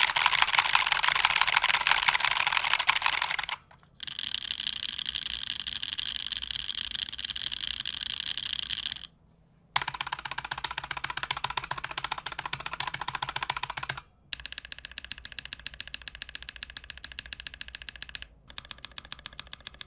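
Fast typing runs on two keyboards compared in turn, broken by short pauses at each switch: a custom Keycult No.1/60 with lubed NovelKeys Cream linear switches on an aluminium plate, and a stock Razer Huntsman Tournament Edition with optical switches. The runs sound clearly different, some louder and clacky, others with a higher, ringing tone.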